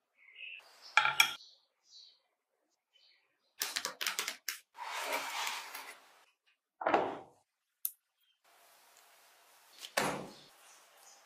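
A string of separate kitchen food-prep sounds: a wire whisk clicking against a glass bowl near the start, then clusters of clicks and taps and brief scraping and rustling noises, with a soft thump near the end.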